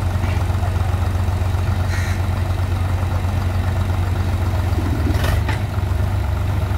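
Heavy diesel engines of a JCB backhoe loader and a tractor stuck in mud running steadily with a deep, pulsing throb. A short noisy burst comes about five seconds in.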